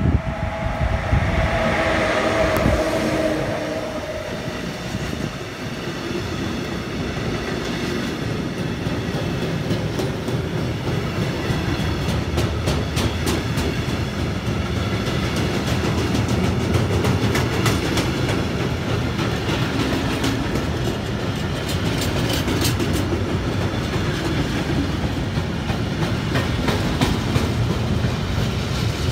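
An electric locomotive passes close by with a brief humming whine, followed by a long freight train of open wagons rolling past. The wagons make a steady rumble of wheels on rails, with runs of sharp clicks as the wheels cross rail joints.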